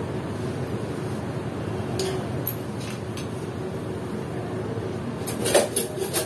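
Steady background hum with one sharp click about two and a half seconds in, then a short clatter of a metal spoon clinking against kitchen vessels near the end.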